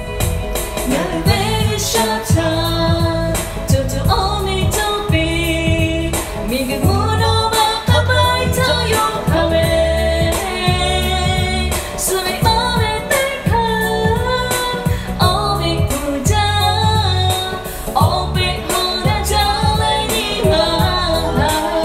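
Lahu pop song: a woman sings the melody over a band backing of bass and a steady drum beat.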